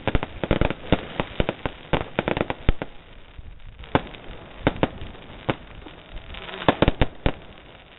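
Fireworks and firecrackers going off in rapid, irregular bangs. The bangs come in clusters, with a brief lull about halfway through and another near the end.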